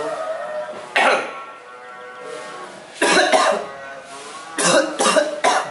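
A man coughing, a series of about five harsh coughs spread over several seconds, with background music underneath.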